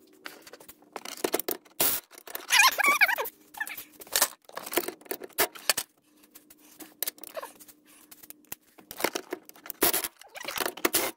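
Close, irregular rustling, scraping and clicking handling noise, with a brief wavering squeak about two and a half seconds in.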